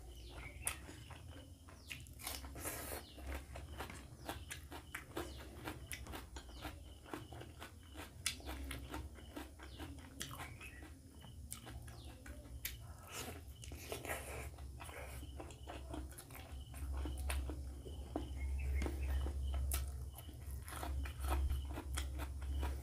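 Close-miked chewing and wet mouth sounds of a person eating rice and egg curry by hand, an irregular run of small smacks and clicks, with fingers squishing rice on the plate. A steady low hum runs underneath, louder in the last few seconds.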